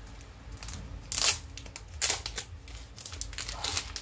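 Packaging rustling and scraping as a camera battery charger case is slid out of its sleeve, in three short bursts about one, two and three and a half seconds in.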